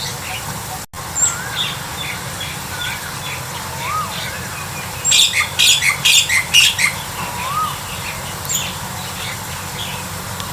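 Wild birds calling: short whistled notes that rise and fall, repeating every second or so, with a loud burst of harsh squawking chatter from about five to seven seconds in.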